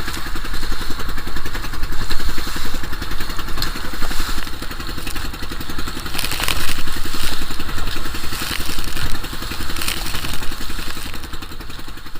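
A small fishing boat's engine running steadily under way, its rapid firing pulse carrying throughout, with rushing wind and water noise over it.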